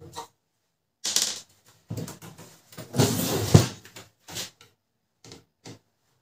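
Plastic parts of a laser printer being handled during disassembly: irregular clattering and scraping for a few seconds, then a few short separate clicks and knocks.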